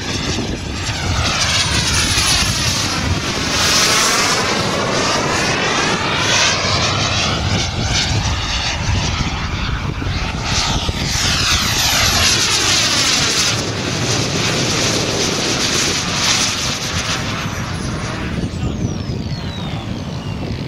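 Small turbine jet engine on a half-scale radio-controlled Fox glider, running as the model flies passes: a loud rush with a thin high whine that slides in pitch as it goes by, falling steeply near the end.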